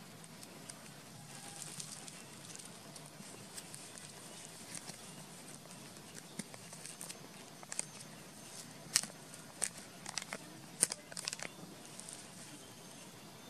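Baby monkey suckling from a plastic milk bottle: soft irregular clicks and crackles of sucking and the teat. The clicks grow sharper and louder in a cluster from about eight to eleven seconds in.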